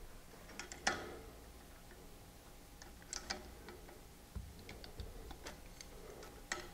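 Scattered small metal clicks and clinks of a bearing lock nut and tab lock washer being fitted on a hammer mill rotor shaft and turned with a hook spanner wrench. The sharpest click comes about a second in, with a dull knock a little past the middle.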